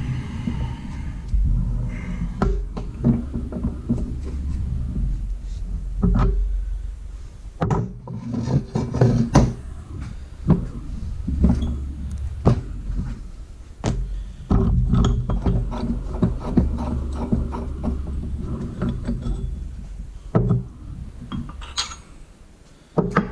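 Ball joint press being tightened by hand on an upper control arm to force a new ball joint in, heard as irregular metallic clicks and knocks from the tool and press. A steady low hum runs underneath.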